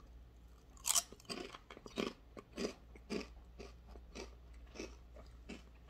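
A kettle-cooked ridged potato chip (Ruffles) being bitten and chewed. A sharp crunch about a second in is followed by a run of shorter chewing crunches, about two a second, that grow fainter.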